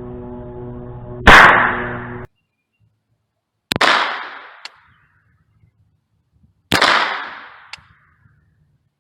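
Three single shots from an AR-15 pistol running a .22 LR conversion kit, spaced two to three seconds apart, each followed by a short fading echo; after the second and third shots a faint click comes about a second later.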